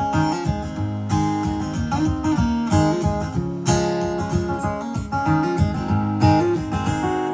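Acoustic guitar strummed in an instrumental break of a country song, with no singing.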